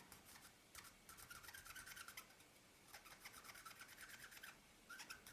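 Cotton bud scrubbing sticky old oil off a part inside a Synchro Compur leaf shutter: faint scratchy rubbing in two spells of about a second and a half, and a short one near the end.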